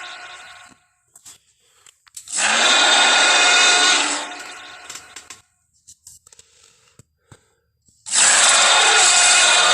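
Film sound effect of a Tarbosaurus roaring: a harsh roar starting about two seconds in, lasting nearly two seconds before fading, then another roar starting near the end.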